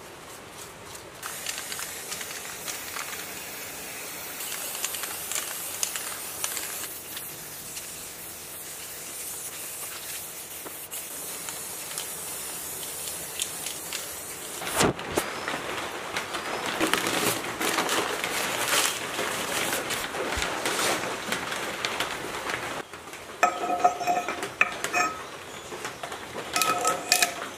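Aerosol spray can hissing in short spurts as blue paint is sprayed onto cast-metal electric motor end covers. Near the end come several ringing metallic clinks as the motor's metal parts knock together.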